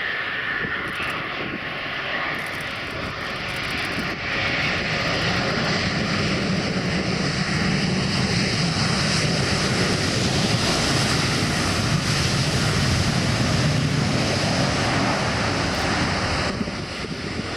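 Twin Rolls-Royce Trent XWB turbofans of an Airbus A350 XWB on a low approach with the gear down, a steady jet roar that grows louder about four seconds in and eases off near the end.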